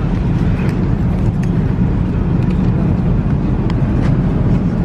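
Steady low drone of an Airbus A380 airliner cabin in flight, from engine and airflow noise, with a few faint clicks.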